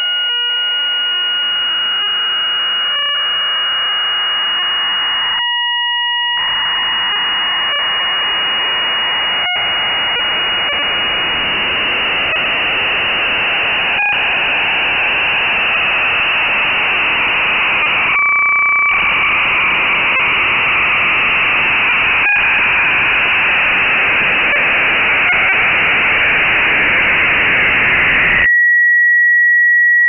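Sonified logistic map iteration, the map's values played back as audio: a loud hiss-like noise as the map runs chaotic. The noise briefly gives way twice to clean steady tones where the map falls into periodic windows, the longer break about two-thirds of the way through holding two tones. Near the end the noise cuts off abruptly to one steady high tone.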